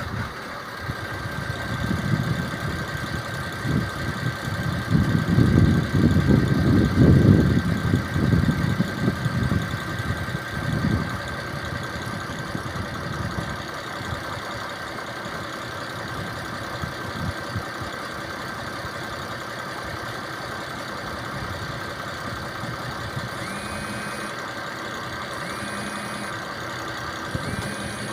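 A motor running steadily with a constant high whine, with louder rumbling for several seconds near the start. From about 23 seconds in, a warning beep repeats about every two seconds.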